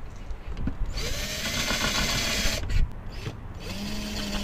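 Electric drill run in short bursts, spinning up with a rising whine each time, as the bit marks hole positions on a camper van's roof for solar panel mounts. One burst lasts about a second and a half; a second one starts near the end.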